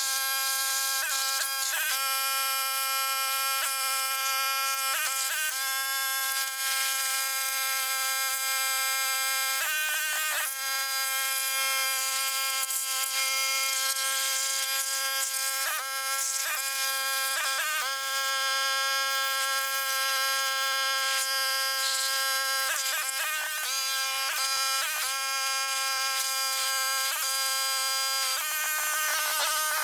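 Background music: a sustained, buzzy synthesizer tone holding steady chords that shift to a new pitch every few seconds.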